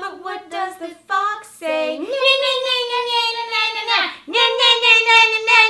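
Women singing in high voices: a few short notes, then a long held note about two seconds in and another held note from just past the middle to the end.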